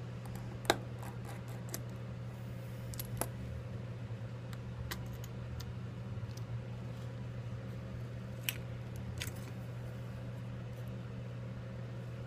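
Sparse small clicks and taps of a precision screwdriver and tiny metal phone parts being handled and set down on a desk, the sharpest about a second in, over a steady low hum.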